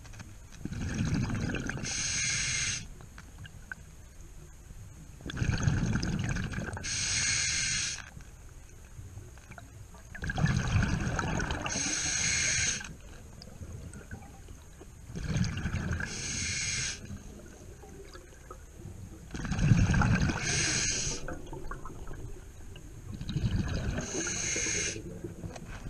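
Scuba diver breathing underwater through a regulator: a rumble of exhaled bubbles followed by the hiss of the next inhaled breath, repeating about six times, one breath every four to five seconds.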